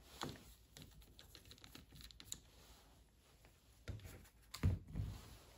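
Screwdriver working the small screws out of a 1979 Honda CB650 carburetor's top cover, making light, scattered metal clicks and taps, with a couple of louder knocks about four seconds in.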